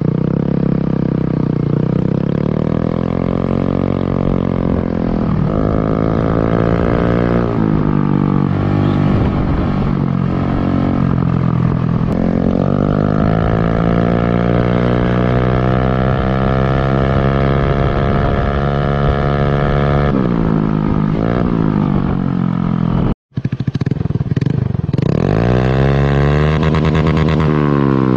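Honda Beat automatic scooter with a stock engine, revving through a CLD aftermarket racing exhaust. The revs climb, hold high and drop back several times, with a rising and falling engine note.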